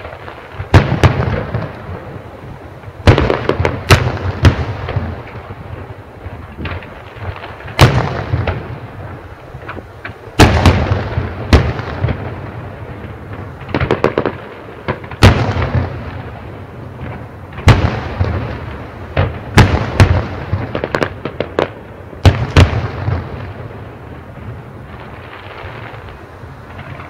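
Aerial fireworks display: sharp shell bursts come in clusters every few seconds, each bang trailing off into a rumble, with crackling in between. The bursts thin out over the last few seconds.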